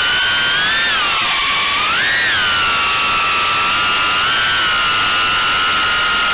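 Motors and ducted props of a 3-inch Armattan Gecko cinewhoop quadcopter, heard from its onboard camera: a high, multi-toned whine over a hiss of air. The whine rises and falls with the throttle for the first couple of seconds, then holds steady.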